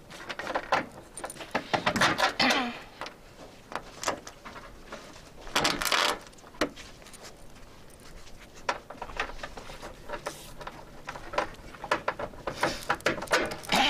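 Small metal mounting hardware, bolts, nuts and washers, clinking and tapping irregularly as it is handled and fitted on a van's metal roof, with a few bursts of rustling.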